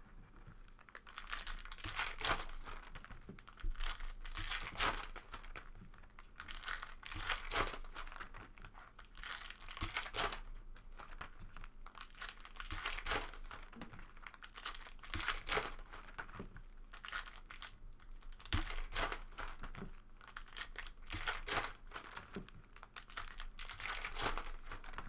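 Foil trading-card pack wrappers crinkling and tearing open by hand, in irregular bursts.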